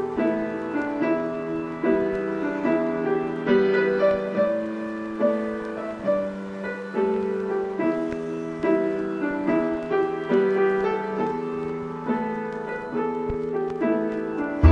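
Background instrumental music: a slow melody over held chords.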